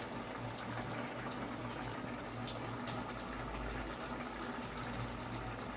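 Pot of white pea curry boiling on a gas stove: a steady bubbling with a few small pops.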